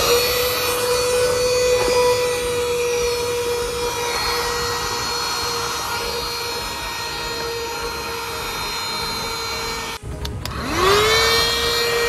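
Small cordless handheld car vacuum cleaner running: a steady motor whine over a rushing hiss of suction. It cuts out abruptly about ten seconds in, then spins up again with a rising whine.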